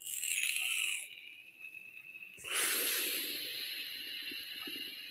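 Breathy hissing of a person drawing on a small handheld vape pen held to the lips. It comes in two spells: about a second at the start, then a longer one from about two and a half seconds in.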